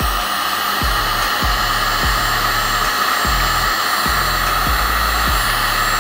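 Black & Decker KX1800 1800 W heat gun running steadily on its low (400 °C) setting, its fan blowing a continuous stream of hot air.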